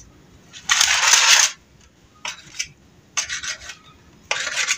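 Knife slicing a roll of paneer dough into pieces on a stainless steel tray, the blade scraping on the metal four times; the first scrape, about a second in, is the loudest and longest.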